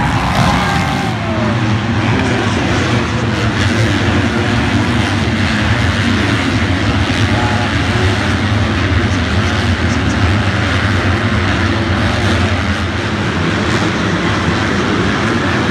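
A pack of motocross bikes racing together, their engines making a continuous loud drone of many overlapping engine notes, with one engine's pitch falling about a second in.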